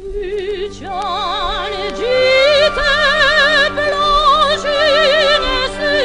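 A female operatic soprano sings long held notes with a wide vibrato over a sustained instrumental accompaniment. The voice enters at the start and climbs to higher held notes about two seconds in.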